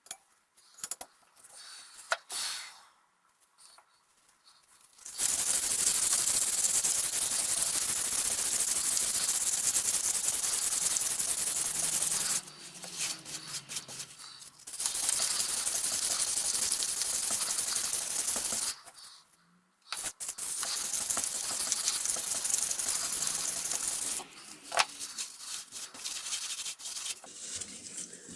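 Abrasive working of the cleaver's steel surface: a harsh, steady hiss that starts and stops abruptly, in three long stretches with short breaks. Quieter clicks and knocks of handling come in between.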